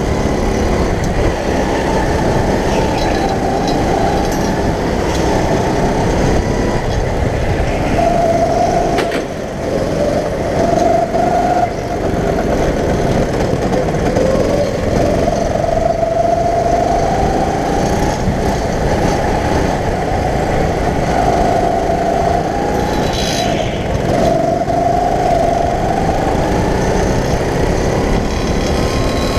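Go-kart motor running at racing speed, heard from the driver's seat, loud and continuous, its pitch rising and falling again and again as the throttle comes on and off through the corners.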